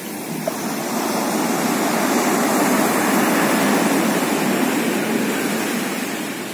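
Pacific Ocean surf washing ashore: a wave's rush builds over a couple of seconds, holds, then slowly fades.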